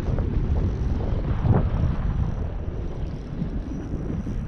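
Strong wind buffeting the microphone: a steady low rumble that swells briefly about a second and a half in.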